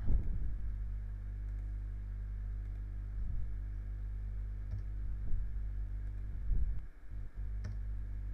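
Scattered clicks of a computer mouse and keyboard over a steady low electrical hum, with a few soft low thumps.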